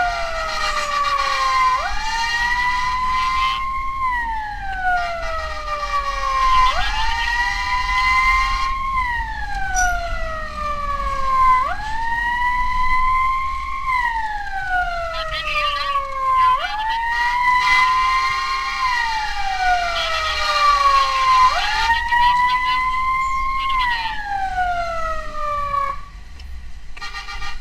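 Emergency vehicle siren wailing loudly: each cycle jumps up in pitch, holds briefly, then slides slowly down, repeating about every five seconds. It stops near the end.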